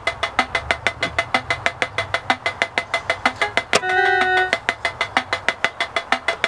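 Yamaha PortaSound toy keyboard playing a fast built-in rhythm pattern of sharp electronic percussion ticks, about six a second. A short held synth note sounds about four seconds in.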